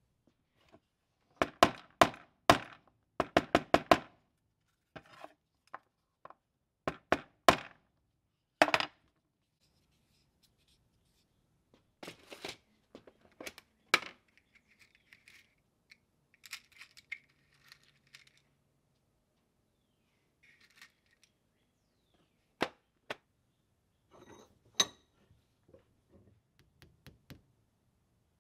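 Sharp clicks and knocks of small tools and parts being handled on a workbench, in quick clusters through the first nine seconds, then softer rustling and scraping with a few scattered taps near the end.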